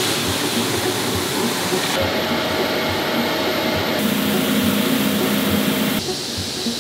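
Tofu-factory noise in three abrupt cuts, all a steady rushing hiss: soybeans pouring from a sack into a stainless-steel hopper, then a soybean grinder running with a steady hum as the ground slurry flows out, then hot soy milk pouring from a pipe into a cloth-lined barrel, with a low machine hum.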